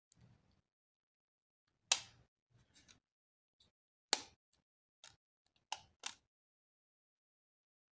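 Sharp plastic clicks and small taps as a Samsung A20's plastic mid-frame is handled and pressed into place over the phone. Four distinct clicks, about two, four and six seconds in, with fainter ticks between.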